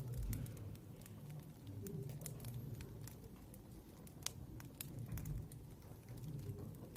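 Scattered light clicks and taps at an irregular pace over a steady low hum.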